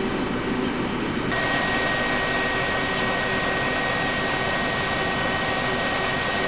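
MTS suction excavator truck running in PTO mode, its engine and hydraulic system making a steady drone as the remote-controlled power arm swings out. About a second in the sound gets a little louder and a thin steady whine joins it.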